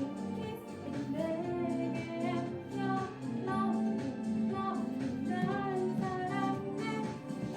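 A woman singing over instrumental backing music during a song rehearsal.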